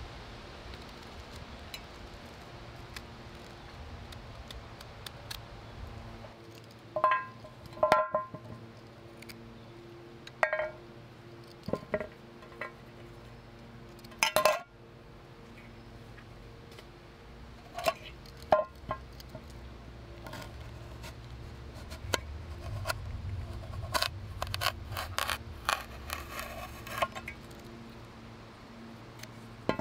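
Vegetables being peeled by hand with a small peeler over an enamel plate: irregular scraping strokes and sharp clinks, some ringing briefly, with a denser run of scraping near the end. Quiet background music plays throughout.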